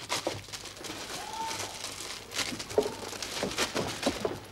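Plastic bags and clutter being rummaged through and handled: irregular crinkling and rustling with scattered small knocks and scrapes.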